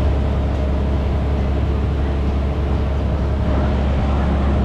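Steady low drone of a river boat's engine running at cruising speed, heard from on board the moving boat.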